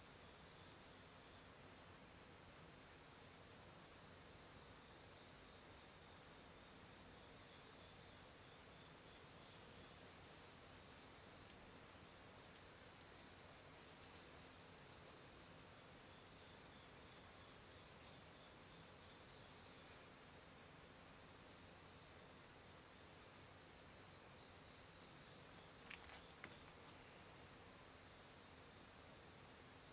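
Faint steady high-pitched chirping of night insects. A second insect chirps in sharp regular pulses, a little under twice a second, in two runs partway through.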